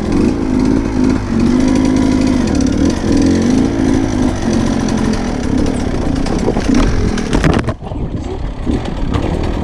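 Sherco 125 dirt bike engine running under constantly changing throttle on a rough trail, its note rising and falling. About eight seconds in, the engine sound drops away sharply for a moment and then comes back.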